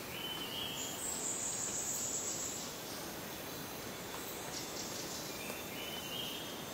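Faint, steady outdoor background hiss, with thin high tones coming and going over it.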